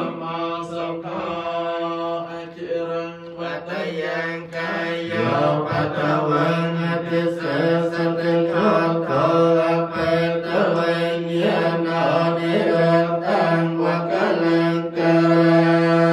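Group of voices chanting in unison on a low, held reciting pitch, the syllables running on without pause, typical of Theravada Buddhist Pali chanting.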